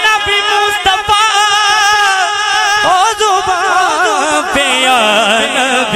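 Male voice singing a naat through a microphone and loudspeakers, drawing out long wavering melismatic notes with no clear words. Near the end a low steady drone sets in underneath.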